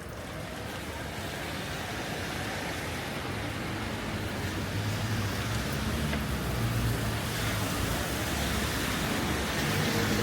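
Wet city street in the rain: an even hiss of tyres on wet road and rain, growing steadily louder, with the low hum of car engines building from a few seconds in.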